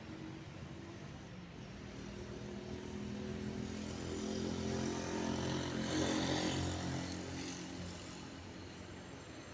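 ATR 72-600 turboprop, its Pratt & Whitney PW127 engines and propellers droning with a steady tone as it passes. The sound swells to a peak about six seconds in, then fades.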